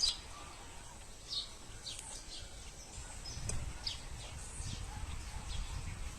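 Small birds chirping at a feeder, short high calls about every second, over a low rumble that grows in the second half.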